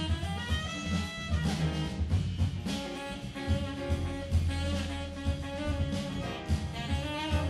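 Jazz sextet playing live: saxophone and piano lines over walking double bass and drum kit, with brass in the ensemble.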